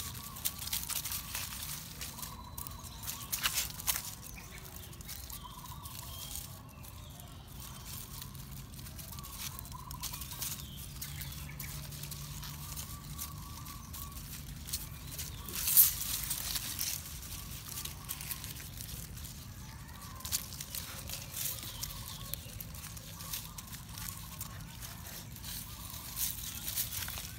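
Dry leaves rustling and crackling as puppies and a cat move and roll about on them, with scattered light scuffs and one sharper crackle about halfway through.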